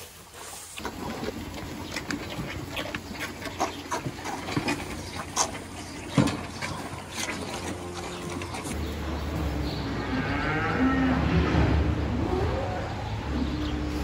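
Calves mooing: a long call in the second half, with another starting near the end, after a stretch of scattered knocks and clatter.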